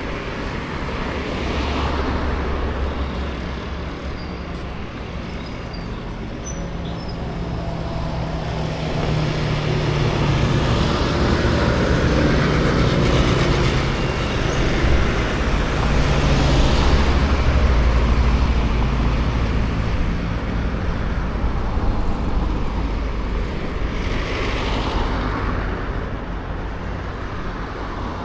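Road traffic passing along a street. A heavy vehicle's engine hum builds in the middle and then fades, with shorter swells as single cars go by.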